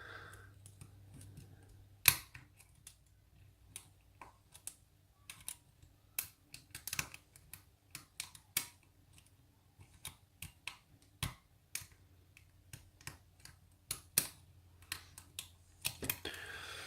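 Small, irregular metallic clicks and taps of a lock pick and tension wrench working the pin stack of a challenge lock, with one sharper click about two seconds in.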